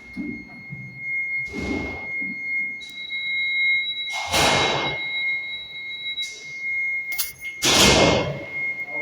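Unidentified electronic alarm sounding a steady, high-pitched tone without a break. Three louder rushes of noise cut across it: about a second and a half in, about four and a half seconds in, and the loudest near the end.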